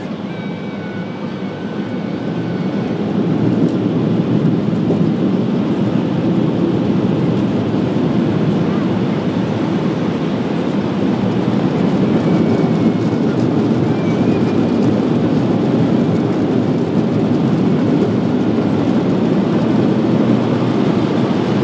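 Automatic car wash blower dryers heard from inside the car: a loud, steady rush of air that swells over the first few seconds and then holds.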